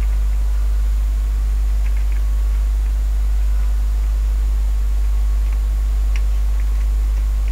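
Steady low electrical hum with a faint hiss under it, and a few faint ticks around two seconds in and again around six seconds.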